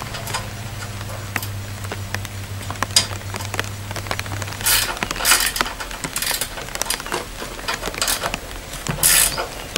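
Light rain patter with scattered clicks and rustles of parts and tools being handled, with louder rustles about five to six and nine seconds in, over a faint steady low hum.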